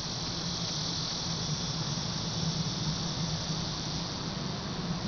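Steady, high-pitched insect chorus with a low steady hum underneath.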